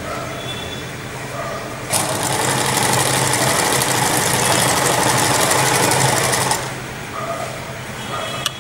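Domestic electric sewing machine sewing a zigzag stitch along a fabric edge in one run of about four and a half seconds. It starts about two seconds in and stops near the end, with fast, even needle strokes.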